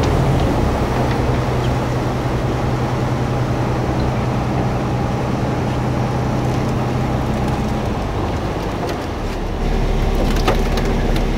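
Fishing boat's engine running steadily underway over water churning in the deck live well. Near the end, a few sharp knocks and clatters as a landing net of fish is tipped into a tray.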